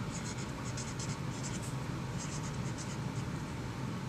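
Felt-tip marker writing on poster board: short, irregular scratchy strokes as letters are drawn, over a low steady background hum.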